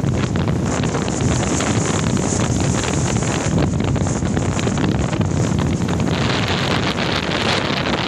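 Strong wind, gusting up to about 80 km/h, blowing across the microphone: loud, steady, deep wind noise.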